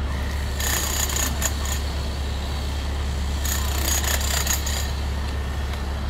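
Yanmar mini excavator running with a steady low engine hum. Twice, each time for about a second, a loud high hiss with a squealing edge rises over it.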